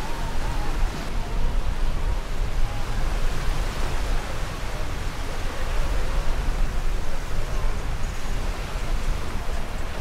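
Small ocean waves breaking and washing up a sand beach in a steady hiss, with wind rumbling on the microphone and faint voices of beachgoers.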